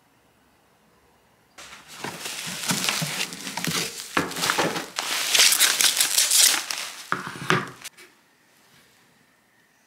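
Packaging crinkling and rustling as it is handled. It starts suddenly about a second and a half in, goes on in irregular crackly bursts for about six seconds, and stops near the end.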